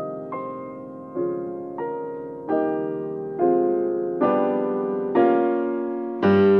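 Slow piano music: notes and chords struck a little more often than once a second, each ringing out and fading, with a louder, deeper chord near the end.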